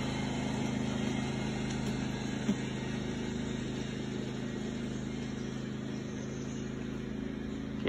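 Vehicle engine idling with a steady low hum, and a single light tap about two and a half seconds in.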